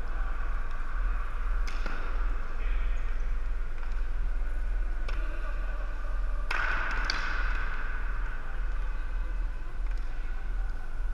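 Floor-hockey play in a gymnasium: several sharp knocks of plastic sticks and ball, with the loudest about six and a half seconds in ringing on in the hall's echo, over a steady low hum.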